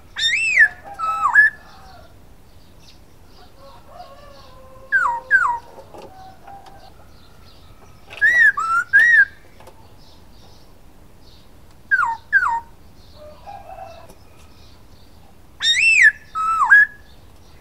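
Black-throated laughingthrush (Poksay Hongkong) singing: five loud phrases of clear, swooping whistles a few seconds apart. Each phrase is two or three notes that rise and then fall.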